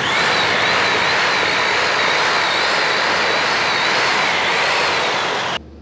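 Electric drill mixer running steadily, churning cement-based crystalline waterproofing powder with water into a slurry. Its motor whine wavers slightly, and the sound stops abruptly near the end.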